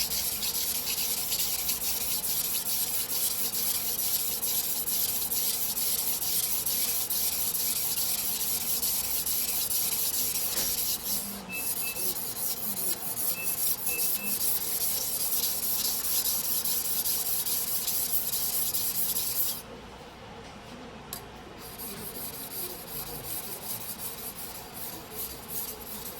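A single-bevel sujihiki slicing knife ground back and forth on a whetstone: a steady scraping hiss of quick, continuous strokes. About twenty seconds in it drops off sharply, and quieter, lighter strokes follow.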